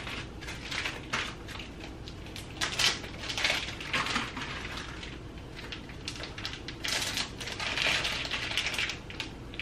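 Crinkly plastic food packet being handled and opened, rustling and crackling in irregular bursts.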